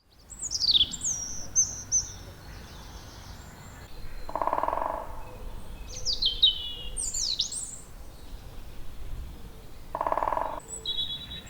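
Songbirds singing clear, falling whistled phrases, with two short buzzy rattles lower down, about four and ten seconds in.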